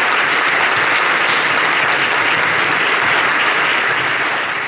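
Audience and panel applauding steadily, the clapping beginning to die away near the end.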